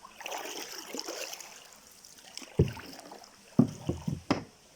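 Stream water splashing and trickling, then four dull thumps in the second half.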